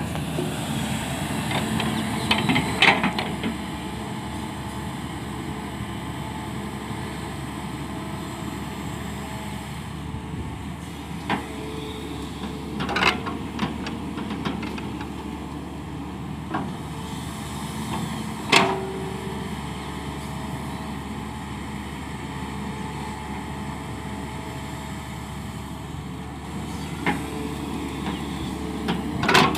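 Hyundai crawler excavator's diesel engine running steadily while it loads soil into a steel tipper truck body. Several sharp knocks and thuds, the loudest about 3, 13, 18 and 29 seconds in, come as the bucket dumps its load and strikes the truck body.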